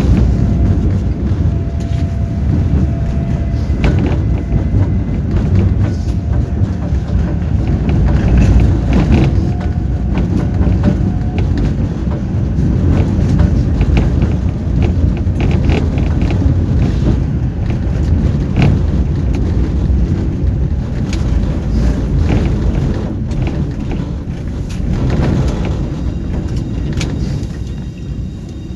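Tram running along the track, heard from inside the car: a loud, continuous low rumble with frequent knocks and clatter from the rails, and a faint steady whine about a second in.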